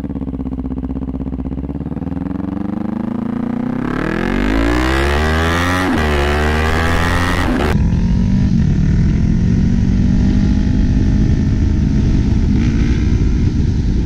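Kawasaki Z400's parallel-twin engine through a Hotbodies MGP slip-on exhaust. It runs at a low steady note at first, then rises in pitch as the bike pulls away, breaks off briefly at a gear change about six seconds in, and settles into a steady running note for the rest.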